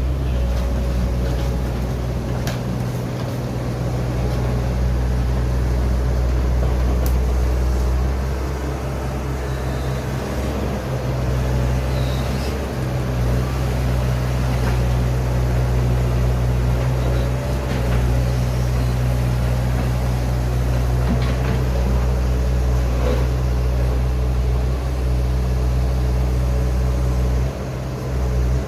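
Hitachi Zaxis ZX110MF excavator's diesel engine running steadily, with a few scattered clicks and knocks.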